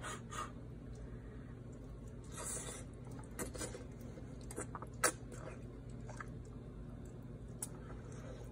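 Soft eating sounds: chewing a mouthful of hot fettuccine Alfredo, with scattered small wet clicks and one sharper click about five seconds in.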